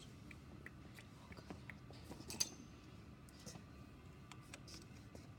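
Faint clicks and small taps from small metal tools being handled, with one sharper click about two and a half seconds in.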